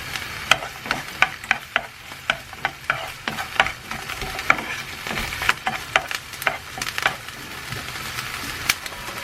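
Food sizzling in a frying pan as it is stir-fried, with frequent sharp clicks of the spatula against the pan. A steady low hum runs underneath.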